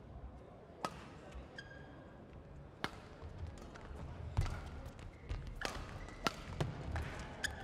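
Badminton rally: sharp racket hits on a shuttlecock roughly every one to one and a half seconds, with short shoe squeaks on the court floor and dull footfalls.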